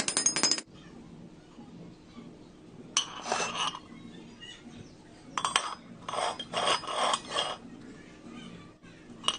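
A fast mechanical rattle stops about half a second in; then metal pieces clink and scrape against each other in several short bursts.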